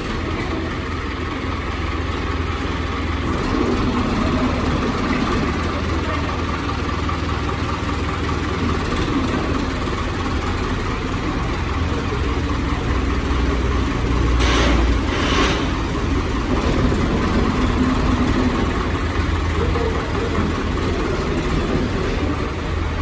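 Diesel engine of a new New Holland 640 tractor running steadily at low revs while it is driven slowly, with two short hisses about fourteen and fifteen seconds in.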